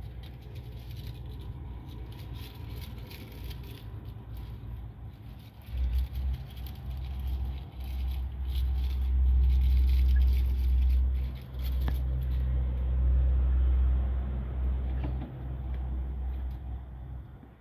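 Low, uneven rumble on the microphone that comes in abruptly about six seconds in and swells and drops several times, with light rustling and rattling over it.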